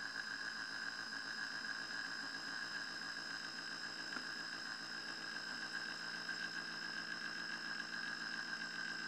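Sailboat's engine running steadily while motoring, with an unchanging drone and a steady high whine on top.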